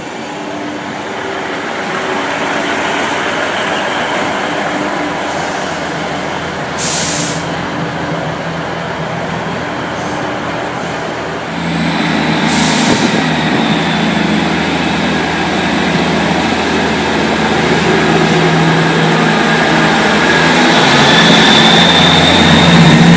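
Class 158 diesel multiple unit's underfloor diesel engines running, with two short hisses of air from the train's brakes. About halfway through the engines turn louder, with a steady drone that keeps building as the unit pulls away.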